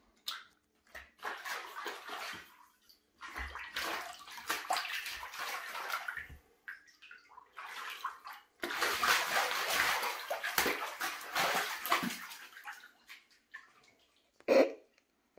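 A puma pawing at shallow water on a tiled shower floor while fishing for small fish: irregular bursts of splashing and sloshing, with one short, louder smack near the end.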